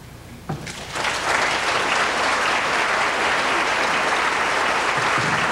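Theatre audience applauding. The applause breaks out about a second in and then holds steady.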